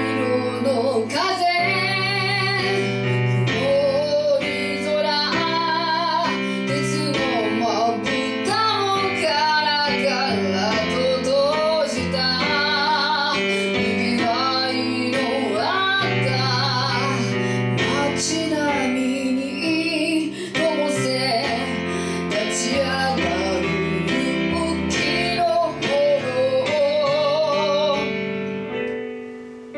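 A woman singing solo into a microphone, accompanying herself on an electronic keyboard in sustained chords, with a clear vibrato on her held notes.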